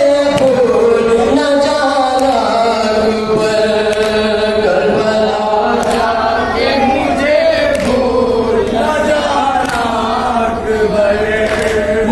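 A man chanting an Urdu noha, a Muharram lament for Karbala, in long held, wavering lines. Dull slaps of chest-beating (matam) mark the beat underneath, roughly once a second.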